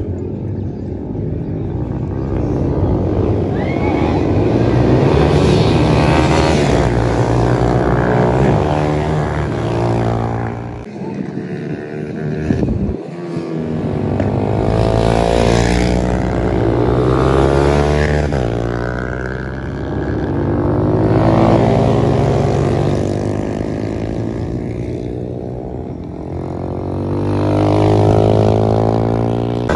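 Sport-bike engines racing past one after another, revving high, their pitch rising and falling as each bike approaches and goes by. The sound swells several times, with a short lull about halfway through.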